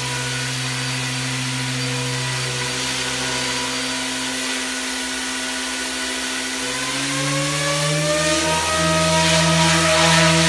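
SAB Goblin Fireball 280 electric RC helicopter's motor and rotors whining steadily, then rising in pitch and getting louder from about seven seconds in as the rotor spools up.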